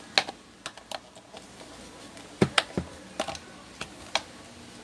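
Irregular light clicks and knocks of hard plastic, a few of them sharp, as a stand fan's plastic motor housing covers are handled and pushed together.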